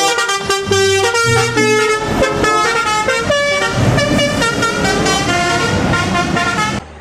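Telolet bus horn playing its tune of several tones in quick succession, cutting off near the end.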